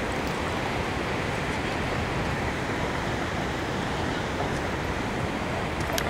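Steady rush of falling water from a large waterfall, an even noise with no breaks.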